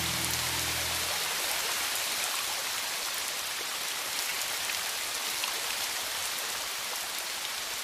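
Steady rain falling on rainforest foliage and standing water, with the tail of a low music chord fading out about a second in.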